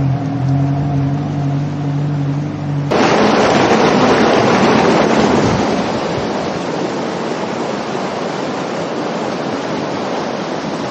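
A steady mechanical hum for about the first three seconds. Then, at an abrupt cut, comes the rush of muddy floodwater pouring through the culverts of a concrete low-water crossing. It is loudest just after it starts and then settles to a steady rush.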